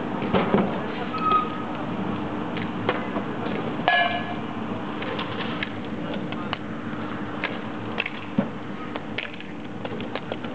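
Hardcourt bike polo play on concrete: scattered sharp clacks of mallets striking the ball and knocking the ground, over a steady background.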